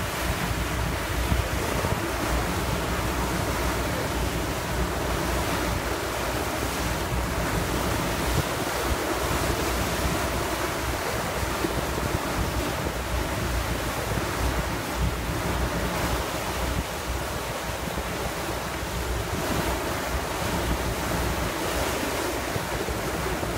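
Wind buffeting the microphone over the steady rush of water along a passenger boat's hull as it crosses choppy water.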